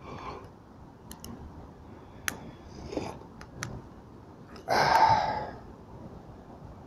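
Small wood fire in a homemade hobo stove crackling with a few sharp pops. About five seconds in, a louder rough noise lasting about a second comes from handling next to the stove, as the enamel pot of water is put down.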